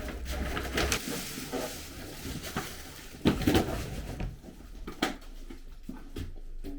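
Metal barbecue grill parts being handled and set down: scattered clatter and knocks over a rustling noise in the first couple of seconds, with one louder knock about three seconds in.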